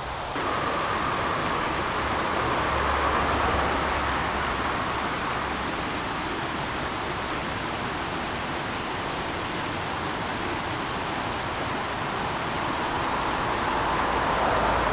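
Fast-flowing woodland stream rushing over rocks: a steady rush of white water that sets in about half a second in.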